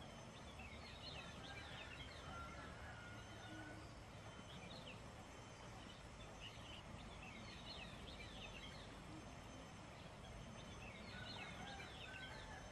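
Small birds twittering in short bursts of quick high chirps, several times, over the faint steady rush of a gentle stream.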